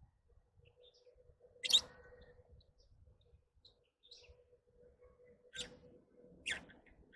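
Lovebirds chirping: three sharp, high calls, one about two seconds in and two near the end, with faint short chirps between.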